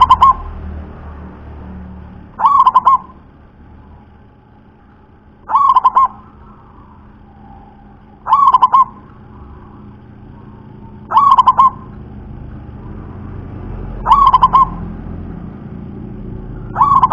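Zebra dove (perkutut) singing its short, staccato cooing phrase, repeated about every three seconds, each phrase about half a second long.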